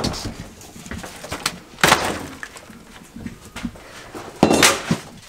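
Broken drywall being handled during demolition: a sharp knock at the start, then two short crunching, scraping crashes about two seconds in and near the end, with small clicks and rustles between.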